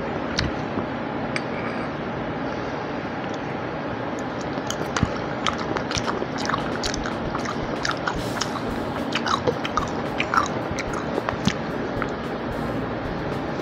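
Close-miked wet chewing and lip smacks of someone eating a mouthful of soft fried cabbage, with many short clicks that come thickest in the middle stretch, over a steady background hiss.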